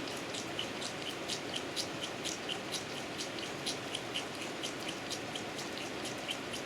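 Goat kid sucking milk from a bottle nipple: short wet smacks about twice a second, over the steady hiss of heavy rain.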